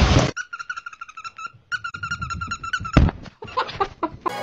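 A small animal chirping rapidly, about ten high squeaks a second, in two runs of a second or so each. About three seconds in there is a thump, followed by a few lighter knocks.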